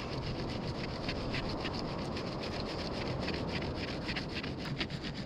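A flat piece of wood rubbed hard back and forth over a rolled cotton bandage packed with charcoal, pressed against a second flat board: a rolling friction fire being worked to heat the charcoal into an ember. Fast, even rubbing strokes, several a second.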